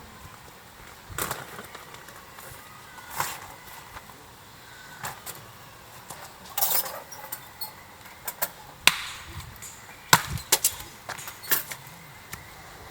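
Firewood being split by hand: a blade striking and cracking into wood in irregular sharp knocks, about ten of them, coming closer together in the second half. The wood is very hard.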